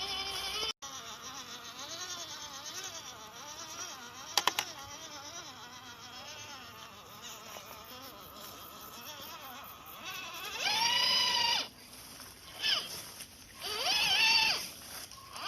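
Small electric motor and gearbox of an MN99S RC crawler whining, the pitch wavering up and down as the throttle and load change. Near the end come several louder rising-and-falling pitched sounds.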